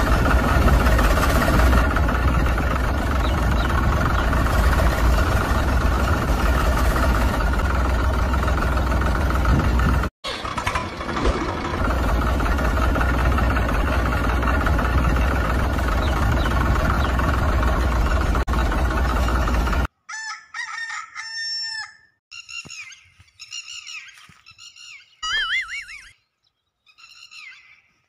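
A steady engine running noise with a deep hum, broken for a moment about ten seconds in, cuts off at about twenty seconds. After it come a string of short, pitched, bird-like calls that rise and fall.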